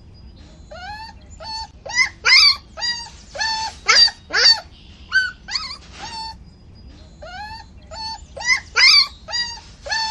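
A puppy whimpering and yelping in a string of short, high, pitch-bending cries, with a quieter stretch in the middle.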